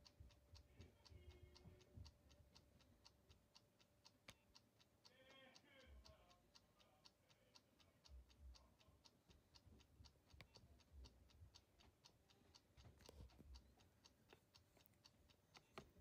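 Near silence: room tone with a faint, even ticking of about three ticks a second.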